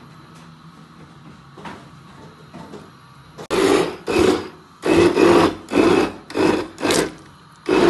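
A handheld immersion blender is run in short pulses, about half a second each, starting about three and a half seconds in. It churns a thick pot of cooked wheat, lentils and chicken into hareesa.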